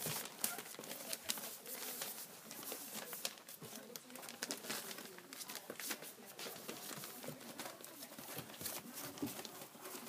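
Newspaper rustling and crinkling under puppies' paws as they walk and nose about on it, with many small sharp clicks and scuffs throughout.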